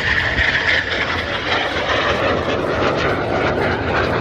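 Aermacchi MB-339 jet trainers of an aerobatic display team flying past with a loud turbojet roar. The high-pitched part of the sound drops lower about a second and a half in as the jets go by.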